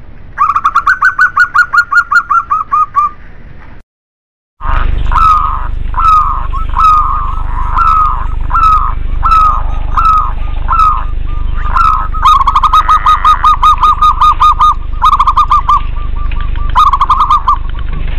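Zebra doves (perkutut) cooing: fast runs of short rolling notes, broken by a short silence about four seconds in. After it come spaced phrases roughly two a second, giving way near the end to quicker trilled runs.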